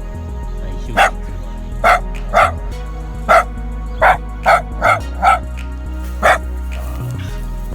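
Shiba Inu puppy barking about nine short, sharp barks in irregular bursts, alarm barking at an unfamiliar bucket it is wary of. Background music plays under the barks.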